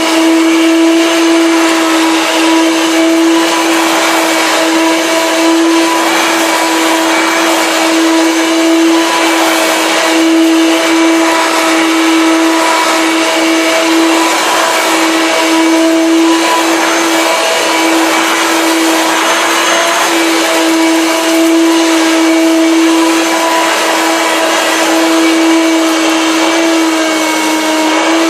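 Hoover Turbo Power Junior U1222 vacuum cleaner running steadily at full power with a constant motor whine, being passed over dust, paper, cat fur and bits of cat litter.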